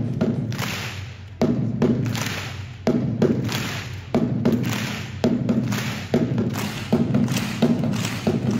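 Heavy thumps, each with a ringing tail, over a steady low hum; about a second and a half apart at first, then coming faster toward the end.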